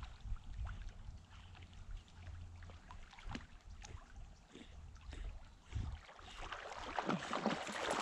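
Water trickling and lapping at the bank, with many small splashy clicks that grow louder near the end, over a low wind rumble on the microphone in the first half.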